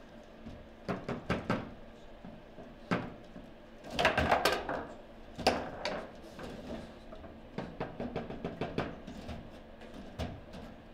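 Foosball table in play: the ball striking the plastic figures and the side walls, and the rods clacking as they are spun and slid. The knocks come irregularly, thickest about four seconds in, with a quick run of lighter clicks later on.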